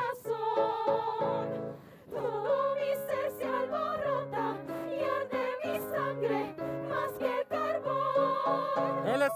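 Live zarzuela music: operatic voices singing with instrumental accompaniment, sustained notes with vibrato.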